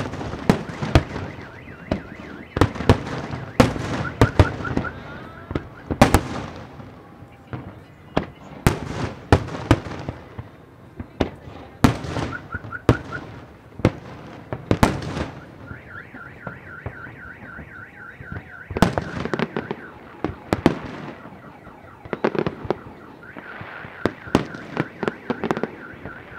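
Aerial fireworks shells bursting in a rapid, irregular series of sharp bangs. In several stretches a car alarm sounds a fast, high, pulsing beep.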